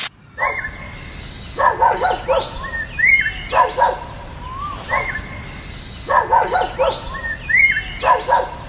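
A dog barking in short runs of a few barks each, with single higher yelps between them, repeating every couple of seconds.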